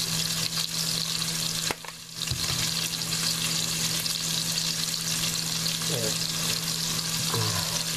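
Pork loin steaks sizzling as they fry in hot oil in a pot, a steady hiss of spattering fat over a steady low hum. The sizzle drops away briefly a little under two seconds in.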